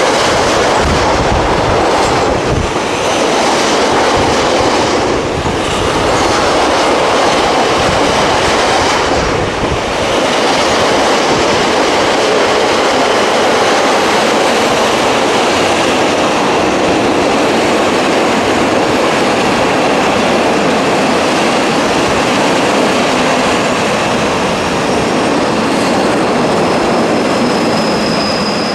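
Empty double-deck car-carrier freight wagons rolling past at speed: a steady loud rumble and rattle of wheels and empty steel frames, with a few heavier knocks in the first ten seconds. A thin, high wheel squeal comes in near the end as the last wagons pass.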